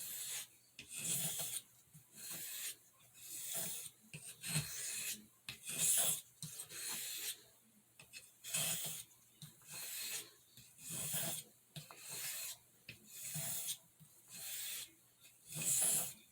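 Pocketknife blade drawn across a soft Arkansas whetstone in light alternating strokes, a dry hissing scrape about once a second with a brief pause midway. The strokes are taking off the burr raised in sharpening.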